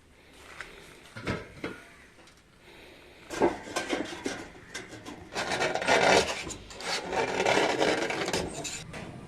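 Scraping and rubbing on a hard surface in irregular strokes, with a few knocks. It grows louder and denser from about three seconds in.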